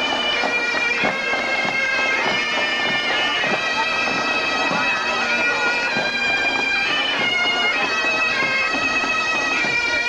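Bagpipes playing a tune, the melody moving between held notes over a steady drone.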